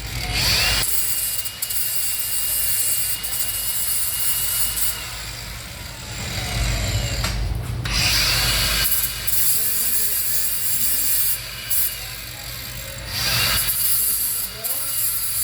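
A handheld electric power tool working on metal. Its motor whine climbs and then holds steady three times, and there are several loud, harsh stretches of about a second each where the tool bites into the metal.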